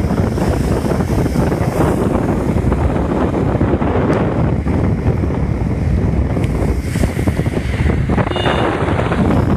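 Strong storm wind buffeting the phone's microphone in heavy rain: a loud, gusty rumble with the hiss of the downpour.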